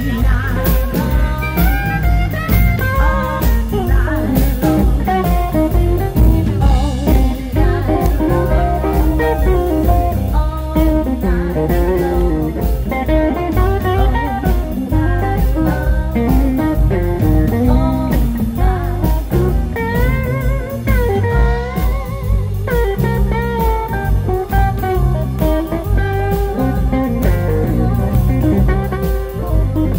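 Live electric blues band playing: electric guitar lines that bend in pitch, over a drum kit and a steady beat, with a woman singing.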